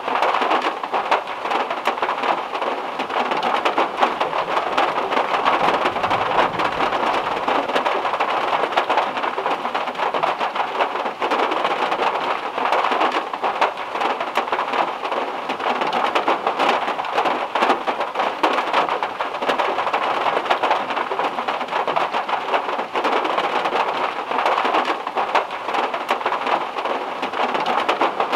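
Heavy rain drumming steadily on a car's metal roof, a dense patter of countless drops. A faint low rumble comes in around six seconds in.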